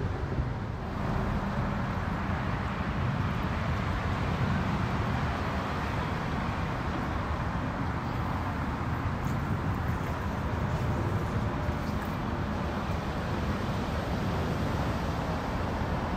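Boat motors running steadily, a low rumble with a noisy wash over it that grows a little louder about a second in.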